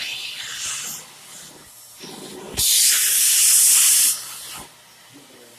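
A loud hiss of air or spray lasting about a second and a half, starting about two and a half seconds in, with fainter hissing in the first second.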